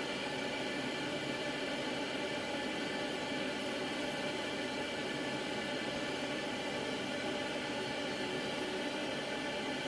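Kotto solder fume extractor's fan running steadily at about half speed: an even rush of air with several faint steady tones.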